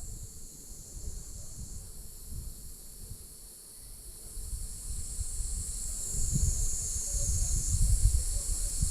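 Steady high-pitched insect chorus hissing throughout, with wind buffeting the microphone in low gusts that grow stronger in the second half.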